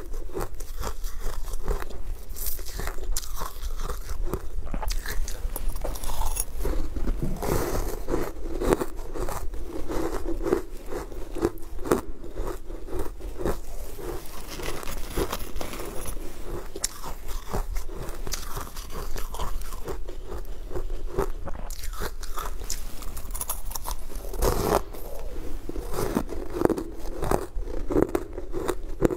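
Close-up crunching and biting into colored sweet ice, a dense run of sharp crackles and crunches with chewing, from a mouth working through the frozen dessert.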